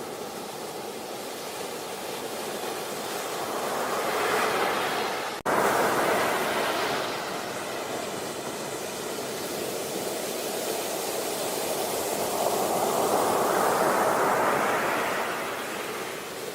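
Sea waves washing onto a beach, a steady rush of surf that swells twice, about four seconds in and again near the end, with a momentary cut in the sound about five seconds in.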